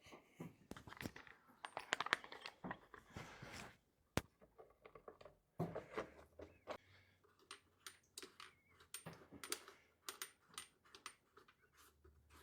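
Hand work on a lawn tractor's small engine: scattered clicks, taps and rustling as parts and covers are handled, with one sharp click about four seconds in.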